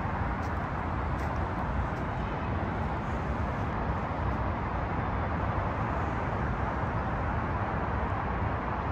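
Steady traffic noise from Interstate 5 running beneath the park deck: a continuous, even rumble and hiss with no single vehicle standing out.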